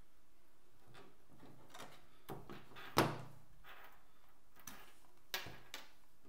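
Clicks and knocks from handling a DJI RC-N1 drone remote controller and pulling its USB cable: a few light taps, a sharper knock about three seconds in and another about five and a half seconds in.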